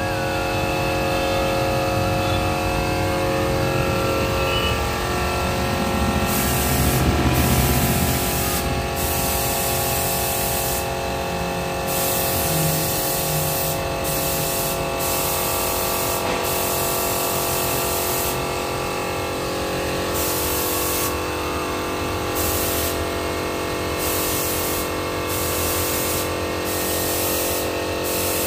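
Compressed-air paint spray gun hissing as colour is sprayed onto clay idols. From about six seconds in, the hiss cuts on and off in a string of short bursts as the trigger is pulled and released, over a steady hum.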